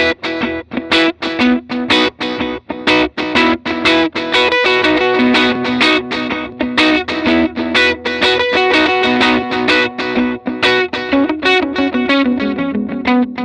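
Electric guitar played through the JET Pedals Eternity Delay, a dual delay pedal running an analog and a digital delay at once. Notes are picked in quick succession, and their echoes overlap and hang on between the picked notes.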